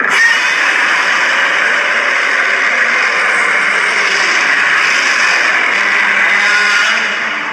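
A long Godzilla-style monster roar, mixed from Godzilla roar recordings, that starts suddenly at full strength, holds steady for about seven seconds and fades away near the end.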